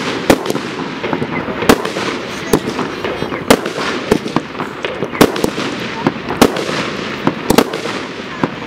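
Royal Fireworks 'Paradise of Beauty' consumer firework cake firing. Sharp shots and bursts come about once a second at irregular spacing, with crackling in between.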